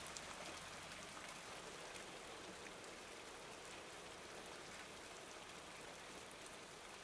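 Hailstorm: a faint, steady patter of falling hail and rain, made of many fine ticks.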